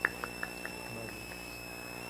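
A lull between songs: the stage sound system's faint steady hum, with about six light ticks in the first second and a half, coming roughly a quarter second apart and slowing.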